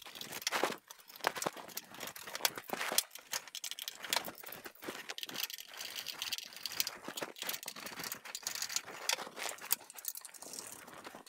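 Machine bolts being turned by hand with a screwdriver up through a plywood pedalboard into a guitar pedal's metal enclosure: irregular clicks, scrapes and small rattles. The pedals and the board are knocked and shifted about on a wooden bench as they are lined up.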